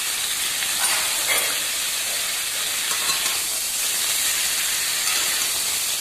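Chicken pieces sizzling steadily in hot sunflower oil in an aluminium kadai, frying on high flame. A metal spatula turns them, with a couple of short scrapes about a second in.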